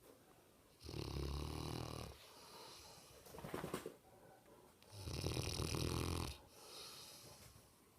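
Mastiff snoring in sleep: two loud snores about four seconds apart, with quieter breaths between them.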